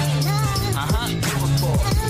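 Hip hop style background music with a steady beat and bass.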